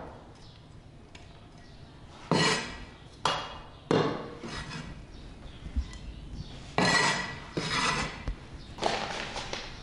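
A cleaver knocking and scraping on a wooden chopping board as chopped green onions are gathered up onto the blade. There are a few separate strokes, a group about two seconds in and another near the end.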